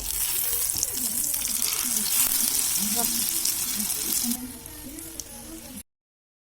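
Vegetable omelet egg mixture frying in hot oil in a pan, a loud steady sizzle that drops off at about four seconds and cuts out suddenly near the end.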